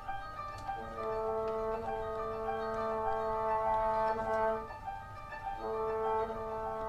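Bassoon playing a long held note, then a second held note after a short break near the end, over twenty-string koto (nijugen) notes plucked underneath.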